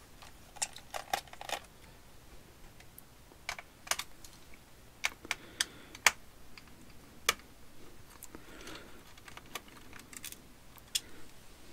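Irregular light clicks and taps of a magnetic-tip screwdriver working the bottom-cover screws of a Dell Latitude E7440 laptop, in scattered clusters with short pauses between.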